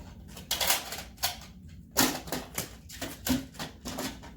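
Plastic magnetic building tiles clacking and clattering in quick, irregular succession as they are gathered up and snapped onto one another in a stack.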